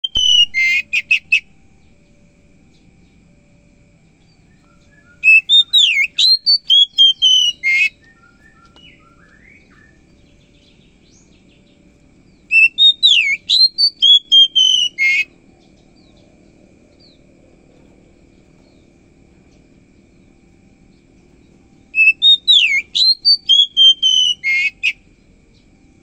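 Oriental magpie-robin singing: four bouts of loud, rapid whistled notes with swooping glides, each lasting about one to three seconds, separated by pauses of several seconds.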